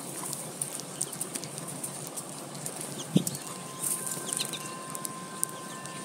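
American goldfinches feeding at a plastic seed feeder: a steady patter of small clicks and taps from beaks and seed, with one thump about three seconds in. A few short high chirps follow, and faint steady tones set in about halfway.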